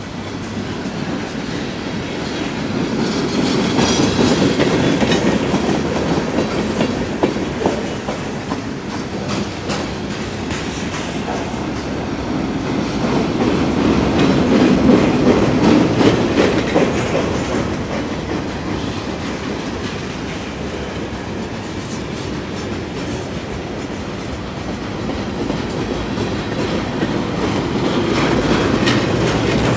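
Freight cars of a long CSX mixed manifest train rolling past, steel wheels clattering over the rail joints. The rumble swells and eases several times.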